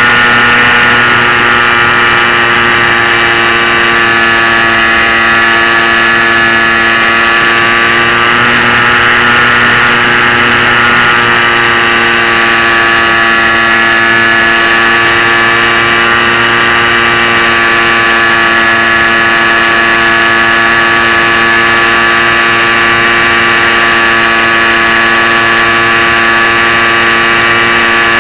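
Small electric motor and propeller of a HobbyZone Champ RC plane running steadily in flight, heard close up from the onboard camera as a loud, even pitched drone. Its pitch dips slightly about eight seconds in and then settles.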